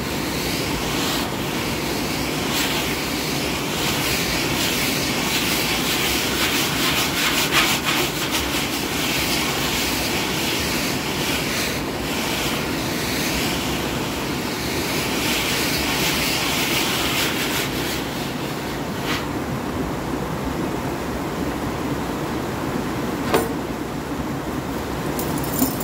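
Flooded creek's whitewater rushing steadily over rocks, with bursts of quick tapping and rubbing laid over it and a single sharp knock near the end.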